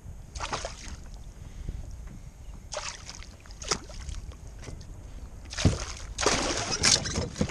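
A lingcod thrashing at the surface beside a kayak, splashing in several short bursts, with the loudest and longest splashing near the end. There is a single thump a little before that.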